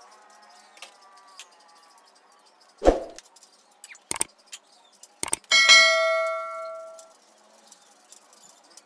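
Steel parts of a home-built steel hydraulic press frame being handled: a dull knock, two sharp clicks, then a loud metallic clang that rings on for about a second and a half before dying away.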